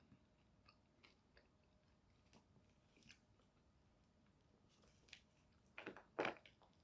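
Faint chewing and mouth sounds of a person eating, with scattered soft clicks and two louder smacks near the end.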